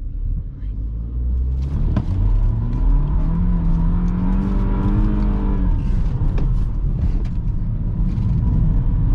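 BMW 320i (F30) turbocharged four-cylinder engine heard from inside the cabin under hard throttle: the revs climb for about two seconds, hold, then drop about six seconds in, over steady road rumble.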